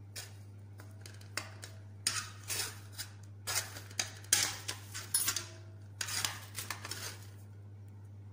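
Metal kitchen tongs clicking and scraping against cookware in a run of short, irregular clatters, as a roasted chicken piece is picked up.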